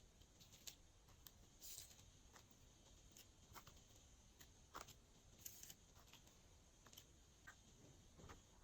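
Glossy slime being kneaded and stretched by hand: faint, scattered sticky clicks and small pops, with two brief crackly hisses.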